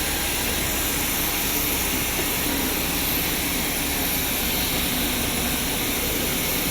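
Steady airplane cabin noise: engine and airflow noise heard from inside the passenger cabin, an even hiss with a few faint high tones running through it.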